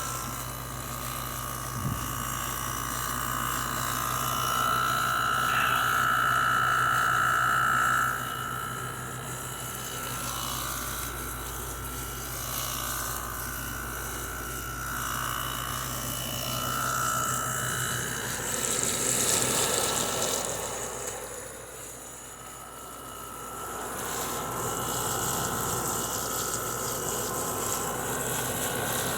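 LG 6000 BTU window air conditioner running, heard from the outdoor side: a steady hum from its GMCC rotary compressor under the whir of the condenser fan motor, with a higher whining tone that swells and fades, loudest for a few seconds early on and dipping briefly past the middle.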